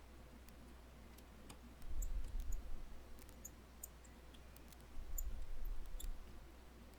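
Faint, scattered small clicks and ticks of precision tools working on an opened iPhone 11 during reassembly. There are two spells of low handling rumble, about two and five seconds in.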